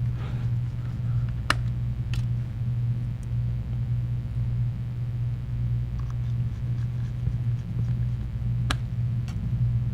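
Steady low hum, with a few small sharp clicks, about four in all, from a Phillips screwdriver driving the small screws into a smartphone's frame.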